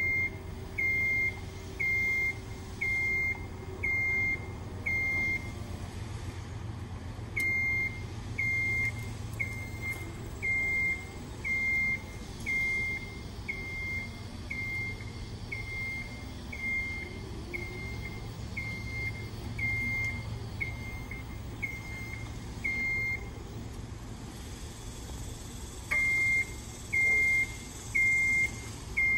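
Vertical mast personnel lift's motion alarm beeping at one high pitch, about one beep a second. It breaks off twice for a couple of seconds and comes quicker in the middle, over a low steady hum.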